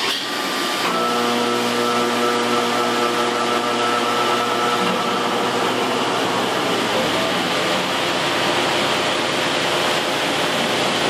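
Steady mechanical drone with several held tones, starting about a second in and running on unbroken.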